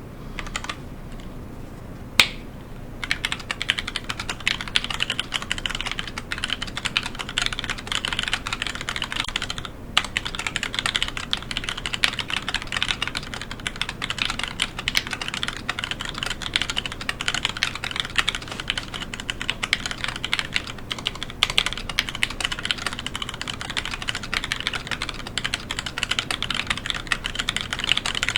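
Fast, continuous typing on a Discipline65 mechanical keyboard with a cracked acrylic case and POM plate, fitted with factory-lubed NK Silk Black linear switches and PBT keycaps. A single sharp click comes about two seconds in, the steady typing starts about three seconds in, and there is a short pause near ten seconds.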